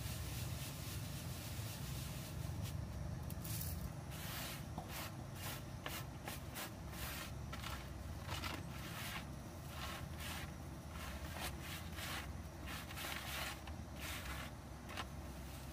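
Ground corn being shaken and sifted in a round woven bamboo sieve, the grains rustling and hissing against the weave in many short, irregular strokes from a couple of seconds in, over a low steady rumble.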